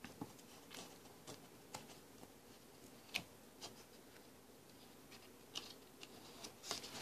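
Faint rustling and light taps of paper as a hand handles the pages of a magazine booklet: a few soft, scattered sounds over quiet room tone, the clearest about three seconds in.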